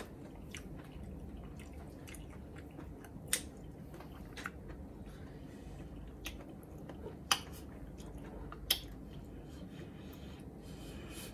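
Scissors snipping through raw offal (a heart), a handful of short sharp wet snips at uneven intervals over a low steady hum.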